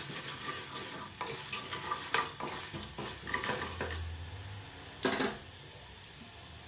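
Chana dal, urad dal and mustard seeds sizzling in hot oil for a tempering, stirred with a wooden spatula in a pressure-cooker pot. The spatula makes a run of short scrapes and knocks over the first four or five seconds and one louder scrape about five seconds in, then only the steady sizzle remains.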